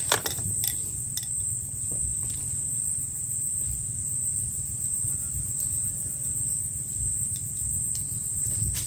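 Steady, high-pitched insect chorus droning without a break, over a low steady rumble, with a few light clicks in the first second or so.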